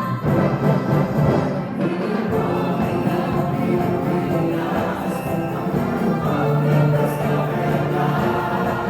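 A navy band playing music on sustained, full chords, with possible singing voices among the instruments.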